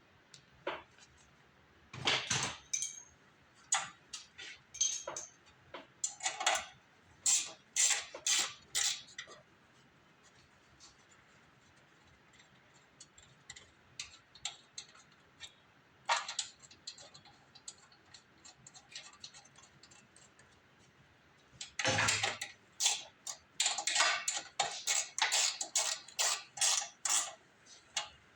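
Irregular sharp clicks and metal clinks of hand tools and small parts being handled during repair work. The clinks come in two busy spells, with only a few faint ticks in the stretch between.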